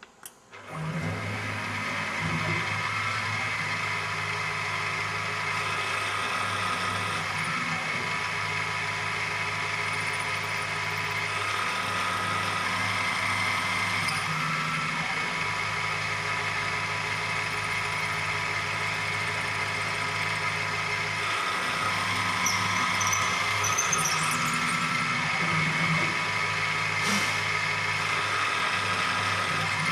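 Optimum BF 20 L Vario CNC milling machine starting with a click, then running steadily with a motor hum and a whine. The lower hum changes every few seconds.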